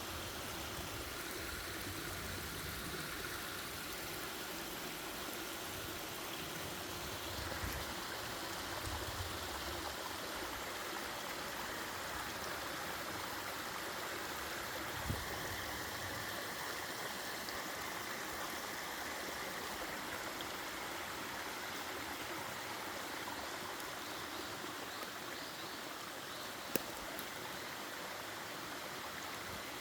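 Mountain valley stream running steadily over rocks, with a short knock about halfway through and a sharp click near the end.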